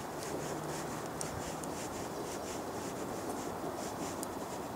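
Light rubbing and scattered small clicks of hands handling a paintball marker's regulator and macro line as the regulator is fitted back on, over a steady background hiss.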